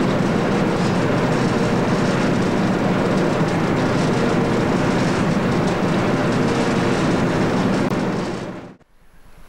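Steady drone of a boat's engine with rushing noise on deck, cutting off abruptly near the end.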